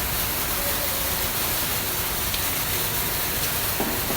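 Color sorter machines running: a steady, even rushing noise with a low hum underneath.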